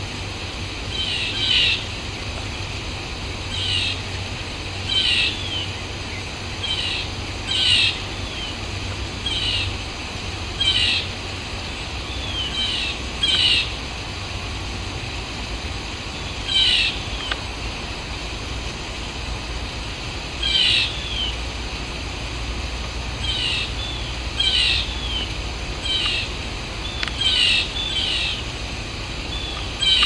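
Blue jay calling in short notes, one every second or two with a pause of a few seconds midway, over a steady low rumble.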